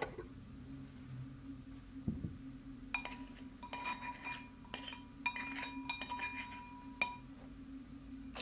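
Brass mortar and pestle pounding, likely walnuts: a run of clinks with a metallic ring from about three seconds in until about seven, the last strike the loudest. A steady low hum sits underneath.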